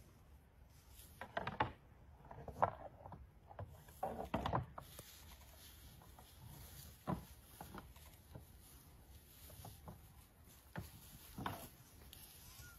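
Two bull moose sparring, their antlers clacking and rattling together in irregular knocks, a cluster of clashes in the first few seconds and scattered single knocks after.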